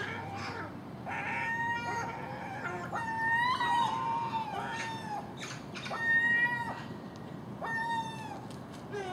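Common gulls calling over and over: a series of drawn-out, high, mewing calls, about six, each half a second to a second long.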